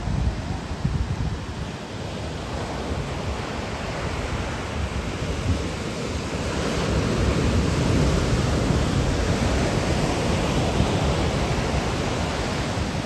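Ocean surf washing steadily, swelling louder about halfway through as a wave comes in, with wind rumbling on the microphone.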